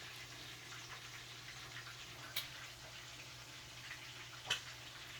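Faint steady sizzling of hot oil in a deep-frying pan, with a low hum underneath and two light clicks about two and four and a half seconds in.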